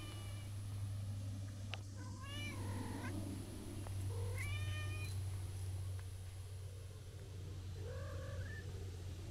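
Tortoiseshell cat meowing several times in long, drawn-out calls that bend in pitch; the last one, near the end, is shorter and lower.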